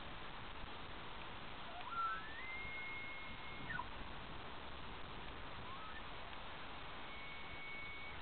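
Bull elk bugling, the rutting call: a high whistle that rises steeply about two seconds in, holds one steady note for over a second and falls away. A second bugle follows, ending in another held high note near the end.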